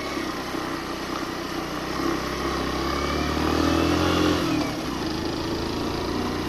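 Suzuki GN 125 single-cylinder four-stroke engine running under load with a passenger aboard. The pitch climbs for a couple of seconds as it revs up, then drops suddenly about four and a half seconds in.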